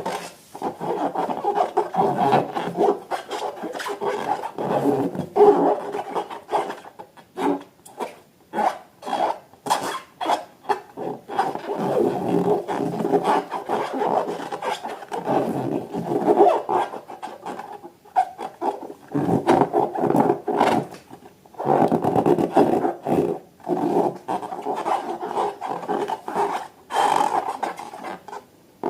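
Hands rubbing and squeezing a rubber balloon: an irregular run of rasping, squeaky rubbing strokes with brief pauses.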